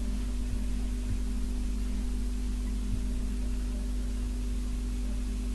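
Steady electrical hum with hiss from the recording's background noise, with a few faint low thumps.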